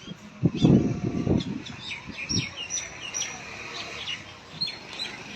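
Birds chirping: many short, high calls, several sweeping downward, repeated through the second half. A loud, low burst of sound comes about half a second in and lasts about a second.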